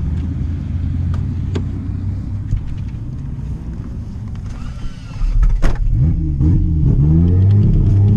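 Big-turbo 2JZ inline-six swapped into a Nissan 240 idling steadily, then after a sharp knock about five and a half seconds in, revved in a few quick throttle blips that rise and fall in pitch before settling into a louder, steady note.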